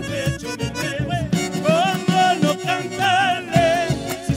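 A live folk band playing: acoustic guitars, accordion and drums keep a steady beat. A melody with a wide vibrato comes in about a second and a half in.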